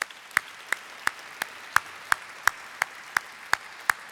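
Audience applauding, with one person clapping close to the microphone in a steady rhythm of about three sharp claps a second.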